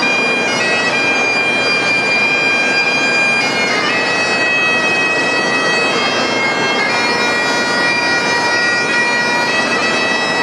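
Several Great Highland bagpipes playing a melody together over their continuous drones, the chanter notes shifting every second or so.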